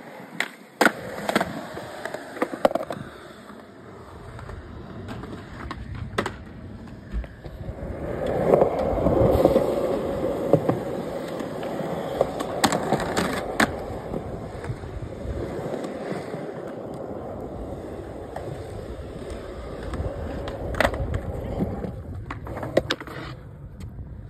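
Skateboard wheels rolling over concrete, with several sharp clacks of the board popping and landing tricks. The rolling is loudest about eight to thirteen seconds in.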